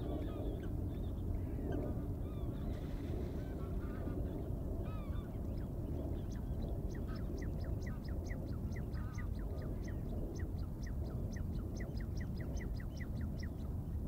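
Rainforest bird ambience: a steady low background noise with several birds giving short calls. From about halfway through, one bird repeats a quick short chirp about three to four times a second for several seconds.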